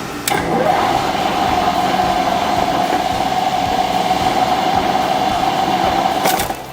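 Machinery running steadily with a constant whine over a noisy rush. It starts just after the beginning and cuts off near the end.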